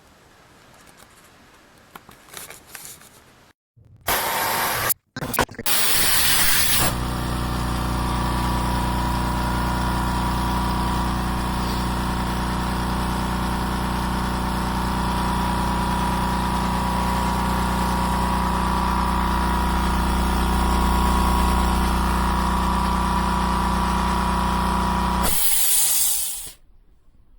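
Limodot 5-gallon oil-free electric air compressor running steadily with a loud motor-and-pump hum, then shutting off near the end. A burst of hissing comes a few seconds in, just before the steady running.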